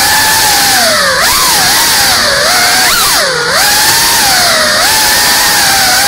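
GEPRC Cinelog 35 cinewhoop's brushless motors and ducted propellers whining in fast flight. The pitch swoops down and back up as the throttle is chopped and punched, most sharply about a second in and again about three and a half seconds in, with smaller dips in between.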